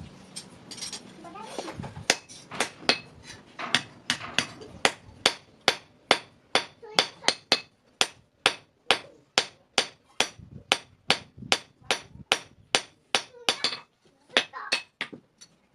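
Hand hammer striking metal on an anvil in a steady rhythm of about two to three blows a second, each blow a sharp clang with a short ring. The blows start about two seconds in, pause briefly near the end, then resume.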